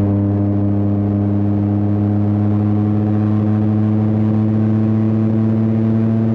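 Yamaha R9's 890 cc inline-three engine pulling steadily at mid revs while riding, its note climbing very slightly, with wind and road noise underneath.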